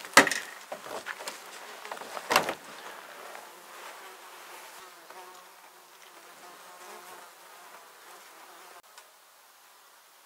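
A horned goat butting and rubbing its head against a pickup truck's tire and body. There are two sharp knocks, one just after the start and another about two and a half seconds in, with lighter knocks and scraping between them.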